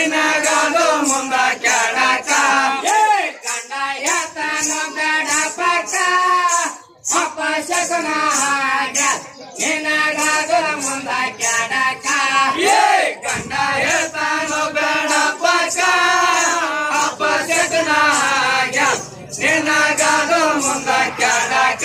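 Group of men singing a Rivayat pada, a North Karnataka Muharram folk song, in unison, over a steady percussive beat of about two strokes a second.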